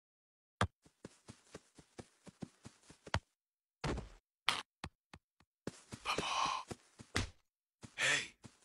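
A quick run of short, sharp clicks, about four a second, then a few breathy exhalations like a person sighing, the last one near the end voiced.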